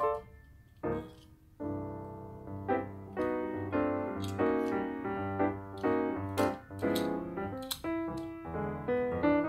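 Background piano music: a light tune that picks up after a quiet first second or so.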